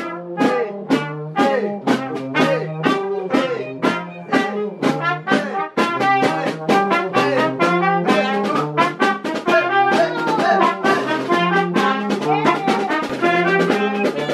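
A small marching band playing a lively tune live: trumpets and other brass carrying the melody over a saxophone and a steady snare drum beat.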